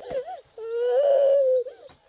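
Sick baby crying: a few short broken cries, then one long wail lasting about a second.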